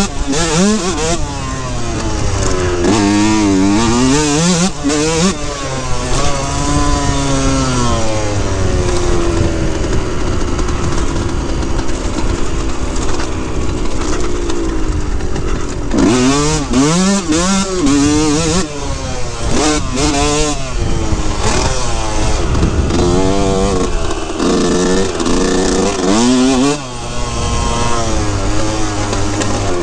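2003 Yamaha YZ125's single-cylinder two-stroke engine being ridden hard, revving up and down again and again through the throttle and gears. About a third of the way in it holds a fairly steady pitch for several seconds, and near the end the throttle is briefly cut.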